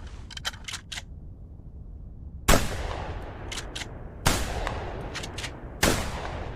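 Remington 870 12-gauge pump-action shotgun: a few sharp metallic clicks of the action, then three shots about a second and a half apart, each with a long echoing tail. Between shots come the clacks of the pump being worked.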